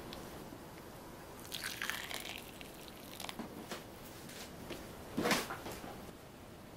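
Small handling noises from a chocolate-making kit: soft clicks, taps and rustles of plastic chocolate pens and mould pieces, in three or four short bunches, the loudest a little after five seconds in.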